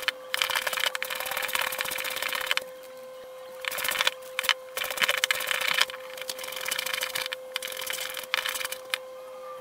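Hand plane shaving wood in a series of long strokes, each one to two seconds, with brief pauses between them, as it tapers a wooden threshold ramp.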